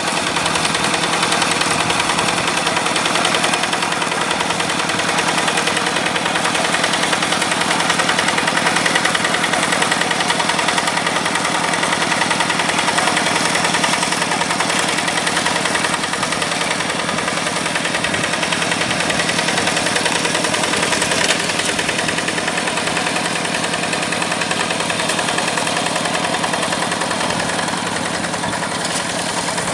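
Yanmar diesel engine of a rice-field tractor running steadily at work, a rapid, even chugging.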